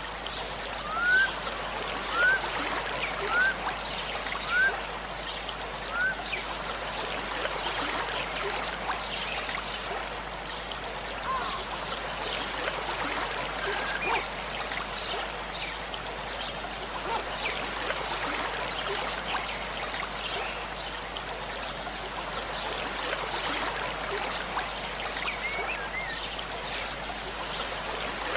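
A babbling stream, with a bird giving five short rising whistled calls in quick succession in the first few seconds and scattered fainter chirps after; a high faint buzz joins near the end.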